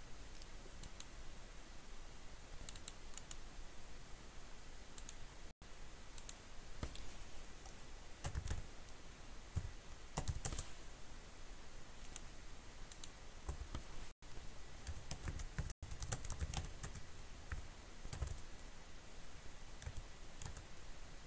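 Typing on a computer keyboard: irregular keystroke clicks in short bursts, with a few dull low thumps in the middle.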